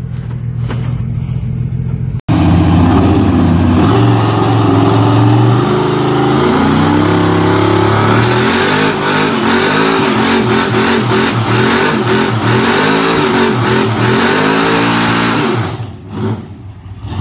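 Lifted square-body Chevrolet pickup's engine revving hard through a burnout, its pitch rising and falling while the rear tyres spin on concrete, and easing off near the end. For the first two seconds, before a sudden cut, a different pickup's engine is running more quietly.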